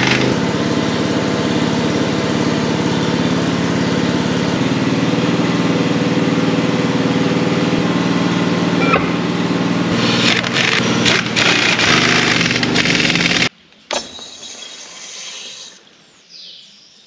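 An engine running steadily, with a run of short knocks about ten to thirteen seconds in. It cuts off suddenly about thirteen and a half seconds in, leaving a fainter sound that dies away.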